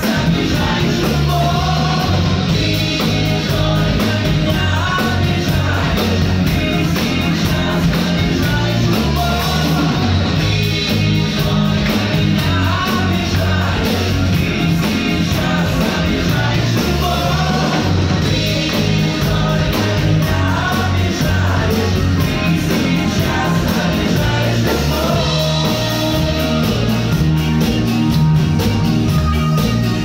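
Live band playing a song on electric guitars, keyboard and drum kit, with a man singing over a steady beat and bass line.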